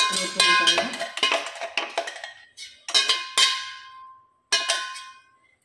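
A stainless-steel mixer-grinder jar clanking against a steel plate as ground bread crumbs are knocked out of it: about half a dozen sharp metal strikes, each ringing on briefly before dying away.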